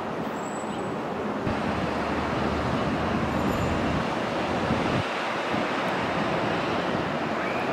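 Electric commuter train passing through a station at speed: steady wheel-on-rail running noise that changes abruptly about five seconds in.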